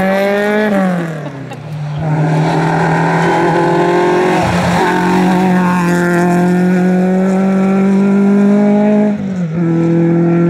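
Rally car engines at full throttle: a Peugeot 106's engine revs up and then falls away as it lifts off in the first second, then a Citroën Saxo rally car's engine holds high, steady revs for several seconds, dropping briefly near the end before picking up again.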